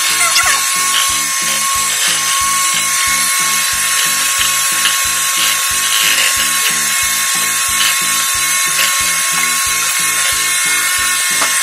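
Electric hand mixer running steadily with a high whine, its beaters churning cream in a bowl. Background music with a steady beat plays underneath.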